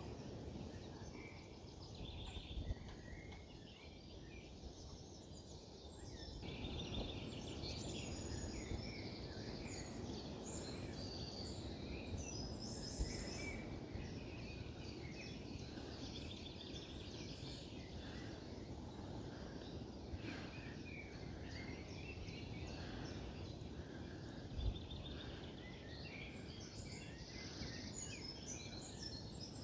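Several songbirds singing, many short chirps and trills overlapping, busier from about a quarter of the way in, over a steady low rumble. Three brief thumps stand out, near the start, the middle and the end.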